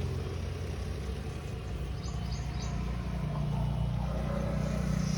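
Steady low rumble of road traffic, with a few short bird chirps about two seconds in.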